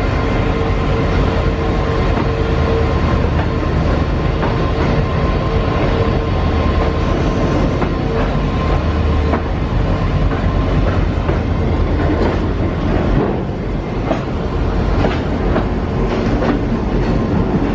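Indian Railways freight train passing close by. A WDM3D diesel locomotive goes by with a low rumble and a steady whine that fades after about nine seconds. The wagons then roll past with a run of regular wheel clicks over the rail joints.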